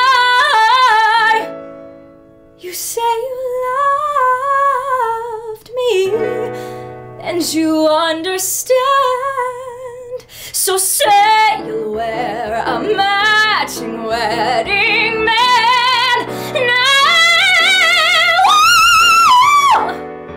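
A young woman singing a musical-theatre ballad over instrumental backing, with wide vibrato. The voice drops out briefly about two seconds in, then builds to a long held high note near the end.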